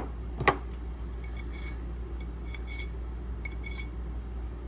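Steel knives being handled on a bench: a sharp clack about half a second in, then a few light metallic clinks, each with a brief ring, over a low steady hum.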